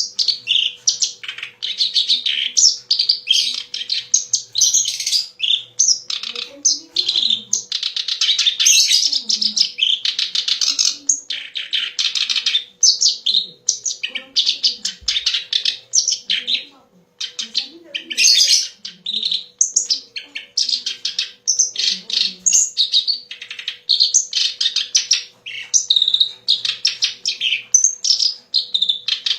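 Kerak basi (reed warbler) singing a long, rapid, scratchy, ever-changing chattering song with hardly a break, pausing only briefly past the middle.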